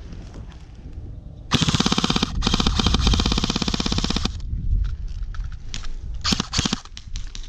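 Airsoft gun firing on full auto: a short rapid burst, then after a split-second pause a longer burst of about two seconds. A few separate sharp clicks follow near the end.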